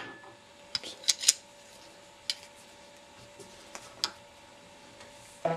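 Channel-lock pliers clicking against a flash hider wrapped in a strip of leather belt as they are set and tightened onto a rifle muzzle: about six sharp, separate clicks spread over several seconds, over a faint steady hum.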